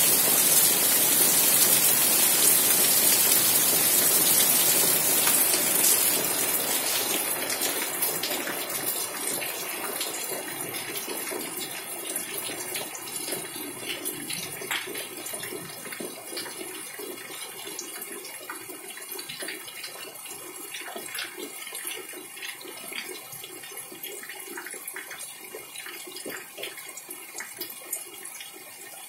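Heavy rain that eases off: a dense, loud, steady hiss for about the first six seconds, then gradually dying down to lighter rain, with separate drops and drips splashing close by over a quieter patter.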